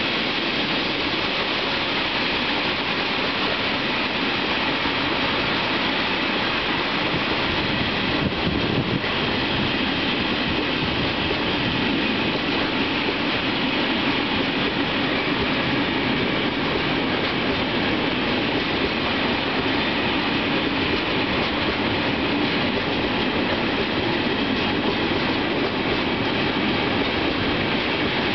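Long freight train of open-top gondola wagons rolling past at a steady pace, its wheels and bogies making a continuous rumble and rattle on the rails.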